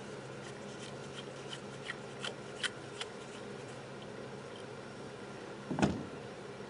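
Light clicks and taps of small carburetor parts being handled on a workbench, with one louder knock about six seconds in, over a steady low hum.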